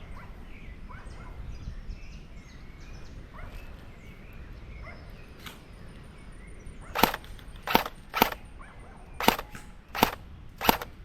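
Airsoft gun firing six sharp single shots at irregular spacing over the last four seconds, after several seconds of quiet outdoor background.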